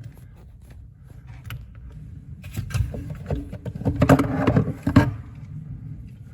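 Handling noises under a kitchen sink: low rumbling shuffles, then a run of knocks and clunks that is loudest around four to five seconds in.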